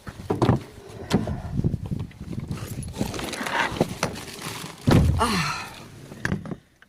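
Handling noise: a run of irregular thumps and knocks, like a door and things being moved about, with a brief falling squeak about five seconds in.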